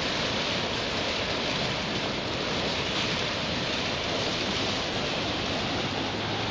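Flash-flood water rushing and churning where it swirls into a whirlpool around the end of a concrete curb: a steady, even rushing.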